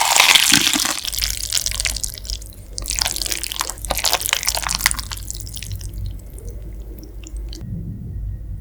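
Close-miked eating sounds: wet, crackly bites and chewing in two loud spells, then fading to scattered faint crackles.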